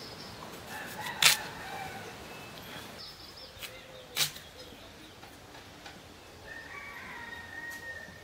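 A few sharp, crisp cuts as a potato is pared against the curved iron blade of a boti, the loudest about a second in and another about four seconds in. Birds chirp in the background, with one longer call near the end.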